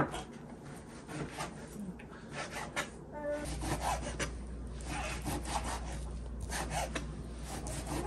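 Kitchen knife sawing back and forth through half-thawed beef on a cutting board, in many short strokes, the blade scraping and ticking against the board. The knife is dull, so each thin slice takes several sawing strokes.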